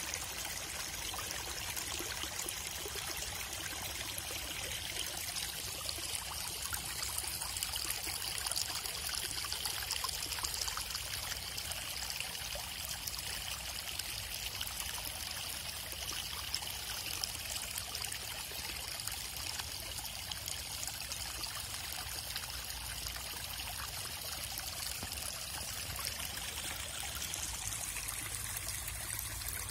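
Rainwater running and trickling steadily after heavy rain, a constant flow with no breaks.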